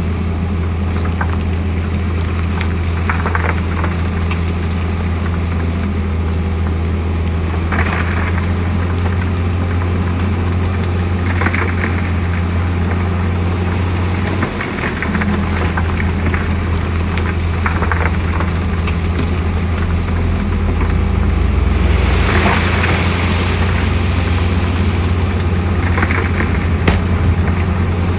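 Heavy diesel engine of a bulldozer running steadily under work, a deep drone with short higher-pitched clanks or squeaks every few seconds. It briefly drops away about halfway through and swells louder for a couple of seconds later on.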